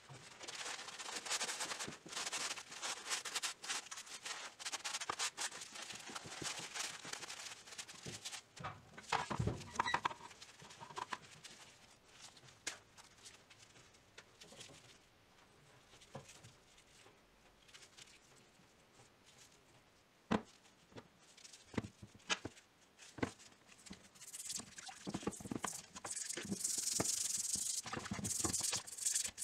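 Toothbrush bristles scrubbing old steel pincers in a plastic tub of vinegar rust-removal bath: fast, dense scratching, with a few single sharp knocks as the tool is handled. A similar scratchy rubbing also runs through the first several seconds.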